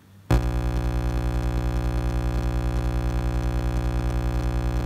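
Loud, steady electronic buzz with a fast pulsing hum underneath, cutting in abruptly about a third of a second in and holding unchanged.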